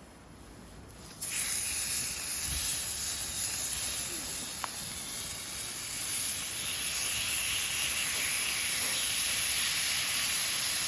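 Sliced beef tongue sizzling on a hot iron griddle over a campfire: a steady hiss that starts suddenly about a second in, as the meat goes onto the hot plate.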